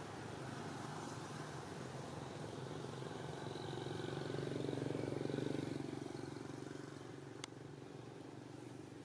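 A faint motor vehicle passing, its sound swelling to a peak about five seconds in and fading away, over steady outdoor background hum. A single sharp click near the end.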